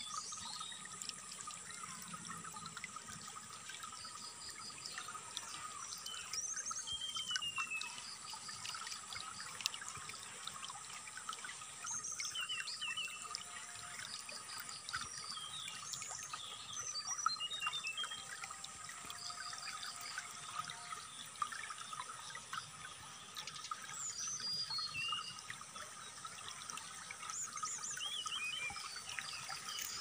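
Water trickling steadily, with a brown-chested jungle flycatcher (sikatan rimba dada coklat) singing short chirps, rapid repeated notes and descending trills every few seconds. This is a masteran recording, played to captive birds to stimulate them and teach them song. A steady high hum runs underneath.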